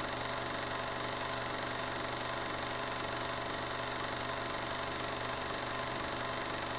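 Domestic cat purring steadily while asleep, an even low vibrating rumble.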